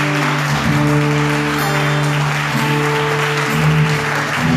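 A congregation applauding loudly over a band's sustained, held chords.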